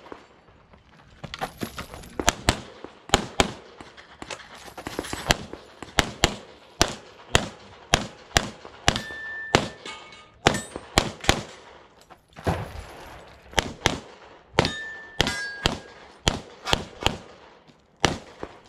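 Pistol shots fired in quick strings of several, with short pauses between strings as the shooter moves between positions. A few hits ring briefly on steel plates.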